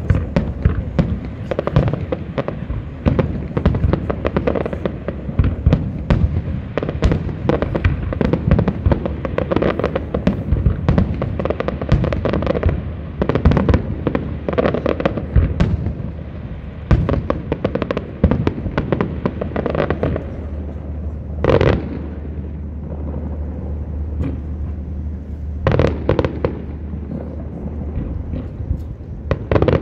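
Fireworks display: a dense barrage of shell bursts and crackling that thins out after about twenty seconds to a few separate loud bangs.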